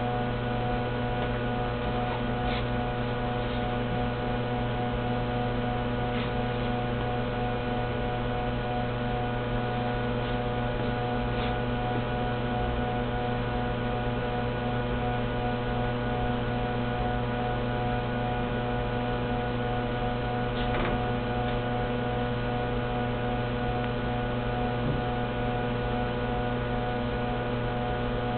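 Steady electrical hum from a powered-up disk punch machine: a low buzz with several steady higher tones over it, and a few faint clicks and knocks as material is handled on the machine.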